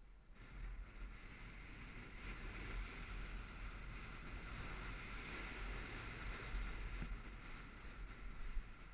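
Wind rushing over the microphone of a camera on a moving bicycle: a steady low buffeting rumble with a hiss over it.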